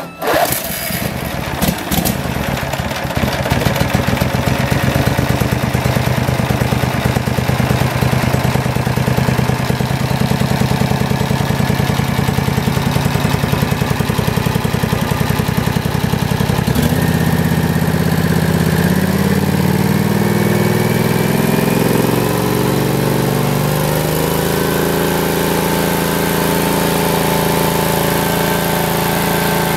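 Briggs & Stratton Vanguard V-twin engine on a riding lawn tractor running at a low, even speed. About 17 seconds in, the engine speed climbs in steps over several seconds, then holds steady at a higher speed.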